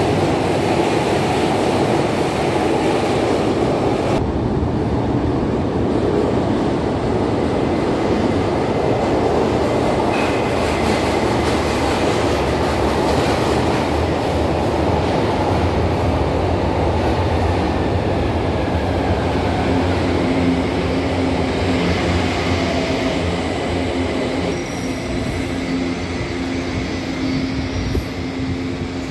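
São Paulo Metro trains in an underground station. A train runs past with a loud rumble of wheels on rails and a thin high-pitched wheel squeal. Another train then rolls along the platform and comes to a stop, leaving a steady hum of its onboard equipment in the last few seconds.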